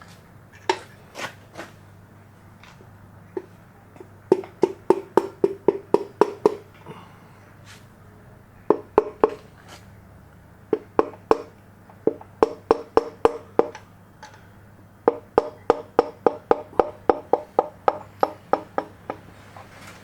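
Several quick runs of sharp metallic taps, about four a second, each with a short ring, from hand tools working on the engine's reciprocating assembly.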